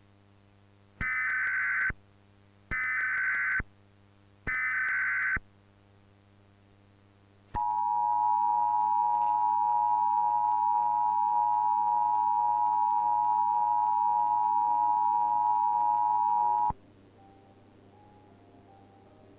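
Emergency Alert System tones: the SAME digital header sent three times as short buzzing data bursts about a second apart, then the two-tone attention signal held steady for about nine seconds before it cuts off. This sequence marks the start of an emergency alert broadcast, before the voice message.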